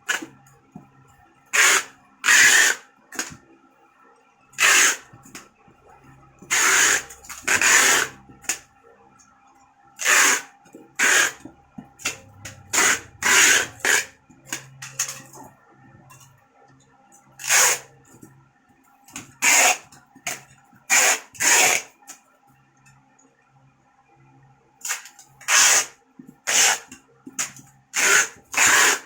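Inverter stick (MMA) welder's arc crackling in short bursts, about twenty strikes of under a second to a second each with gaps between, over a faint steady tone.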